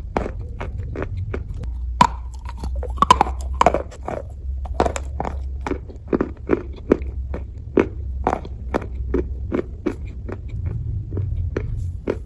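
Wet brown clay being bitten and chewed, crunching in an irregular run of about two to three crunches a second, with sharper cracks about two and three seconds in.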